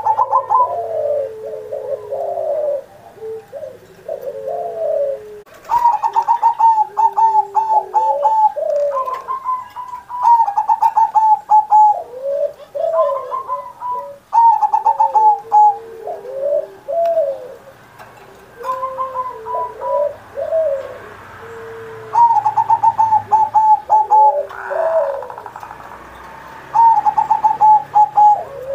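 Zebra dove (perkutut) singing phrase after phrase of staccato cooing notes. From about six seconds in, each phrase opens with a quick run of higher notes that falls into lower, rounded coos, repeated every few seconds.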